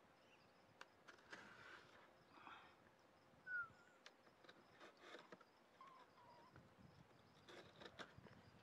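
Near silence, with faint scratches and clicks of a knife cutting the packing tape on a cardboard box. A bird chirps briefly about three and a half seconds in and again softly near six seconds, over a faint high insect buzz.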